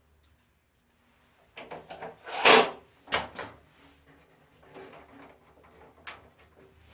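Parts being handled during disassembly: a few knocks and scrapes, with one loud clatter about two and a half seconds in, then faint handling noise.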